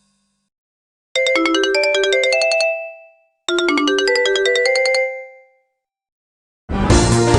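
Sony Ericsson F500i mobile phone ringtone: a short, bright melodic phrase played twice with a pause between. Near the end a different, fuller ringtone begins.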